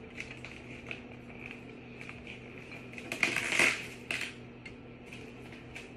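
Small clicks and rattles from a Seville Classics metal-framed canvas laundry hamper being handled during assembly, with a louder clatter of the frame about three seconds in. A faint steady hum runs underneath.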